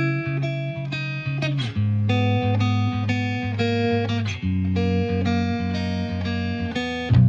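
Background music: plucked guitar notes over a bass line, with a quick slide up the strings twice.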